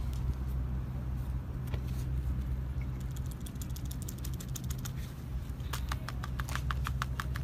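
Spray-paint can being shaken, its mixing ball rattling in quick, even clicks that start about three seconds in and grow faster and louder near the end, over a steady low hum.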